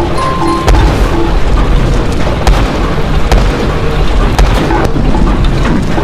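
Road roller's engine running with a loud, heavy rumble as the roller drives over a row of tubes, with a few sharp knocks along the way.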